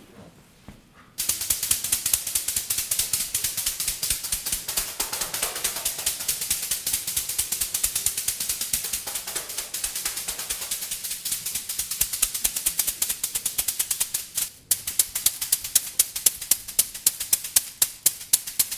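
A rapid, dense run of sharp clicking or tapping starts about a second in. It stops briefly near the three-quarter mark, then goes on with regular louder taps about three to four a second.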